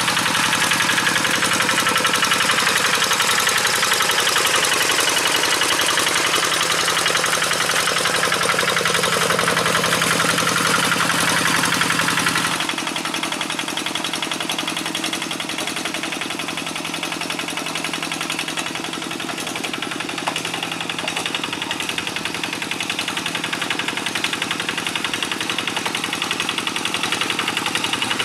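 Kubota RD 85 DI-2S single-cylinder diesel of a hand tractor chugging steadily under load while it drags a cage-wheel harrow through wet paddy mud. About halfway through the sound drops lower and quieter, then slowly grows louder again toward the end.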